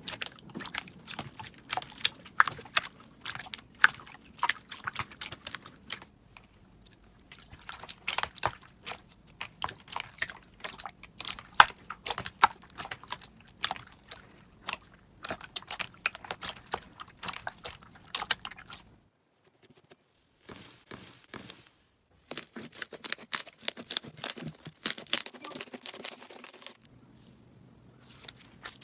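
Slime being squished and pressed, making dense, rapid crackling clicks and pops. It breaks off for short pauses a few times, the longest about two-thirds of the way through.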